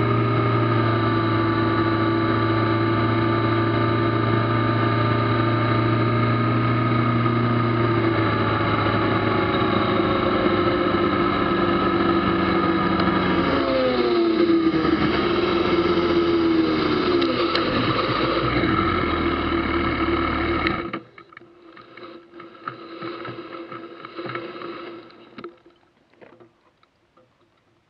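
Kawasaki ZZR1400's inline-four engine running steadily while riding, then its note falls in several steps as the bike slows. About 21 s in the engine sound cuts off abruptly, leaving faint scattered noises and then near silence.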